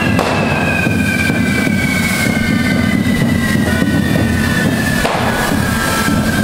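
Fireworks on a festival dragon figure spraying sparks: a loud steady hiss with a high whistle that slowly falls in pitch, and a sharp crack about five seconds in.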